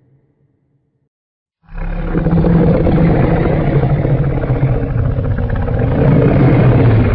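Custom-made Godzilla roar sound effect: one long, low roar starting about a second and a half in, holding steady for over five seconds and cutting off suddenly.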